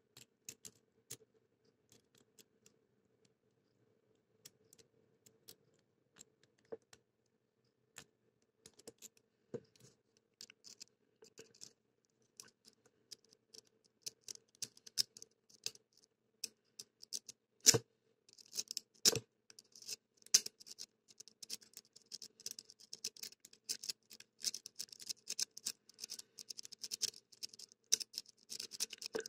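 Lock pick and tension wrench working the pins inside an IBFM pin-tumbler padlock: sparse small metallic clicks at first, then a busy run of fast ticks and scraping in the second half, with two louder clicks a little past the middle.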